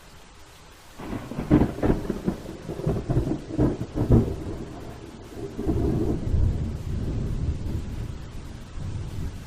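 A thunderclap over a steady hiss: a run of sharp cracks starting about a second in, then a long low rolling rumble that slowly fades.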